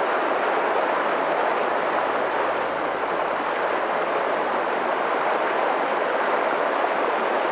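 Mountain stream rushing steadily, an even noise of flowing water.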